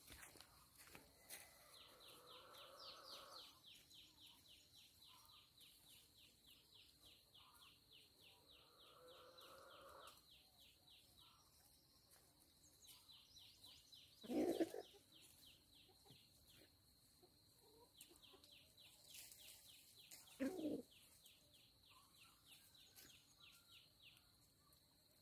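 Faint, steady, fast-pulsing insect chirping in an orchard, with chickens calling: two short, louder clucks, about halfway through and again about 20 seconds in.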